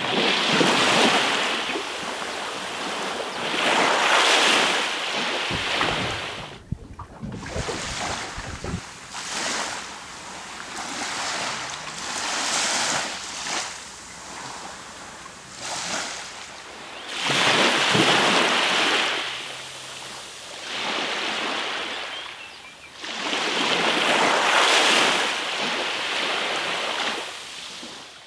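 Sea waves washing onto a beach, the surf swelling and falling away every few seconds.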